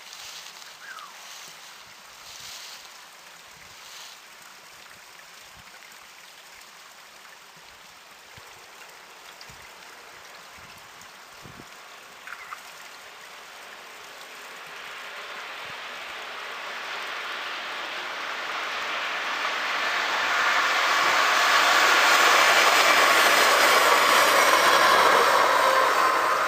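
A train approaching and passing on the line: its wheel and rail noise builds steadily from about halfway in and holds as a loud, steady rush near the end.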